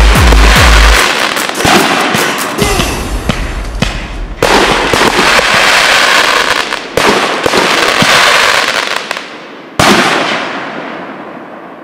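Consumer aerial firework shells bursting in a finale: a quick run of deep booms at the start, then loud crackling and hissing. Fresh bursts come in about a second and a half in, around four and a half seconds, around seven seconds and near ten seconds, and the last crackle fades away.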